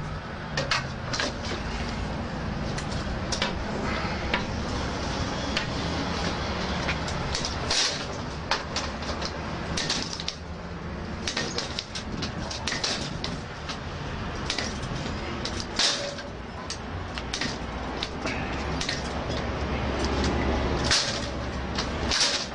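Steel pry bar levering at the lock of an Xpanda steel security gate: irregular metallic clicks, knocks and creaks as the bar strains the gate's lock and frame, over a steady low rumble.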